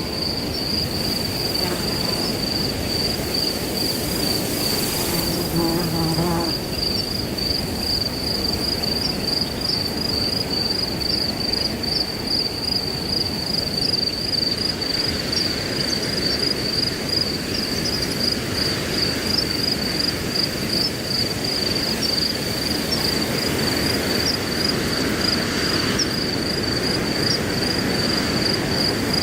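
Crickets chirring in a steady, high-pitched pulsing trill over wind rushing through grass; the wind swells through the second half. A short low-pitched tone sounds about five seconds in.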